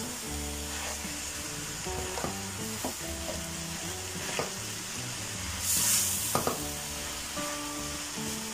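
Beef pieces with tomatoes and spices sizzling in hot oil in a frying pan as a spatula stirs them. A few scrapes and taps of the spatula against the pan, and a louder burst of sizzle about six seconds in.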